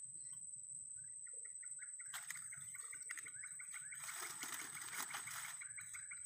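Faint swamp ambience: a steady high-pitched hum under rapid repeated chirping animal calls, with a brief rush of noise about four seconds in.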